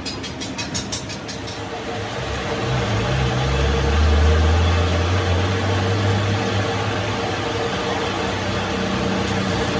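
Metal lathe starting up: a few light clicks, then about two seconds in the motor and spindle come up to speed and run with a steady hum, turning a transmission countershaft.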